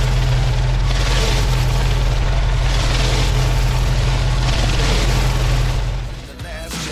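Pressure washer running steadily with the hiss of water jets from a rotary flat surface cleaner working over tarmac, the spray noise swelling and fading as it moves. It drops off near the end as music comes in.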